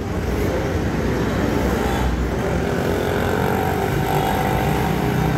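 Road traffic: a steady drone of motor vehicle engines running close by, with a faint held hum.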